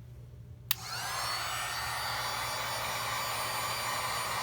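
Handheld heat gun switched on with a click a little under a second in; its fan spins up with a brief rising whine, then runs steadily, blowing hot air.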